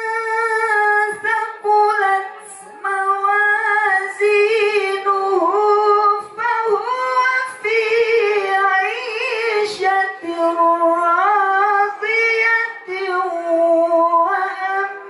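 A man reciting the Qur'an in the melodic tilawah style into a microphone, holding long, high, ornamented notes that waver and turn in pitch, with a short pause for breath a couple of seconds in.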